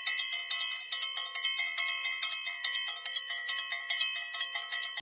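Many small metal bells ringing over and over, with several strikes a second and a cluster of different pitches overlapping into a continuous jangle.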